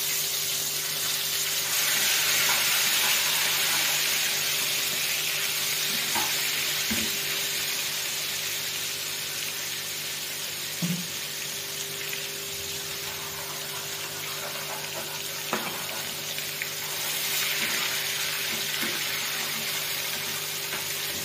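Hot ghee for a tadka sizzling in a pan. It swells louder a couple of seconds in and again near the end, with a few light utensil clicks.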